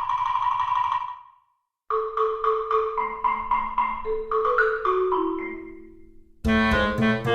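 Background music: a light, bouncy melody of quickly repeated struck notes in a marimba-like tone, about four a second. It breaks off briefly about a second in, and a fuller band of instruments comes in near the end.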